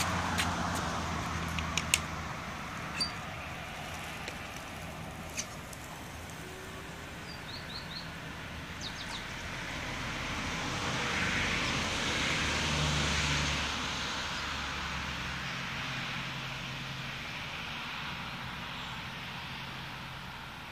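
A stand-up scooter rolling past on an asphalt path. Its noise swells to a peak about twelve to thirteen seconds in and then fades away, over a steady low hum of distant traffic. A few sharp clicks come in the first few seconds.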